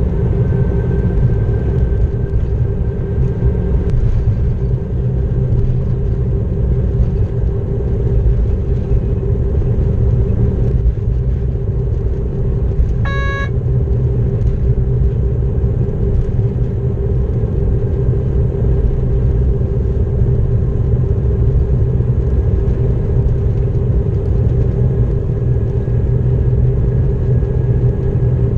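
Class 232 'Ludmilla' diesel locomotive under way, heard from inside the driver's cab: a steady deep engine drone and running rumble with a constant hum. About halfway through, a short single tone sounds for about half a second.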